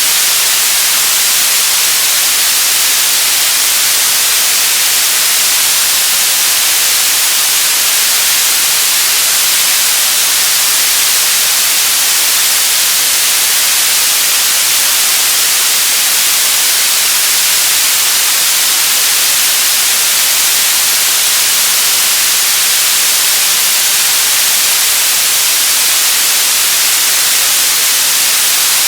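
Television static: steady, loud hiss of an untuned TV, bright and treble-heavy, unchanging throughout.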